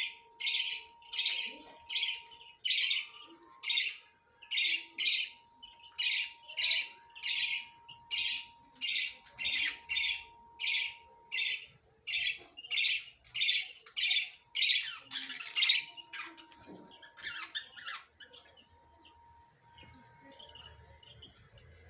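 Parrots squawking: a long run of harsh squawks repeated evenly, about two a second, then a few scattered calls and fainter chatter over the last few seconds. A faint steady tone runs underneath.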